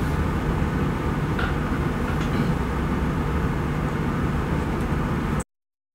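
Steady low hum over a hiss of room background noise, such as a projector or ventilation fan, with no speech. Near the end it drops to dead silence for under a second.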